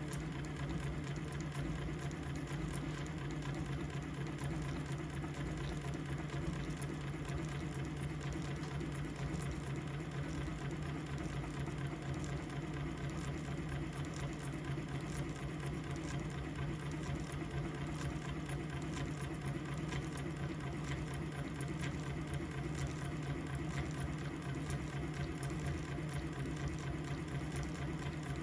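Singer 111W155 industrial walking foot sewing machine running steadily at an even speed, driving its bobbin winder to fill a bobbin.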